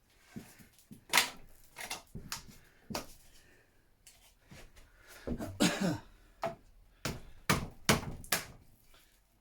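Irregular knocks, clicks and clatter of scooter parts being worked loose and handled by hand, with a longer scraping creak about halfway through.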